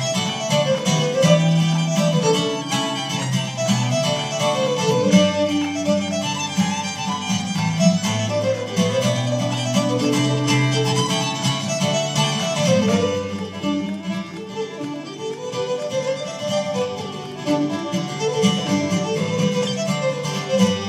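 Fiddle and acoustic guitar playing an Irish reel together: a bowed fiddle melody over a steady guitar accompaniment.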